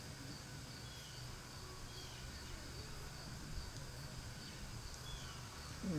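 Outdoor ambience: a steady high insect drone with a few faint short bird chirps over a low rumble.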